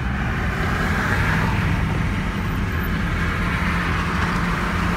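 Steady road noise inside a moving car on a freeway: a low rumble with tyre hiss.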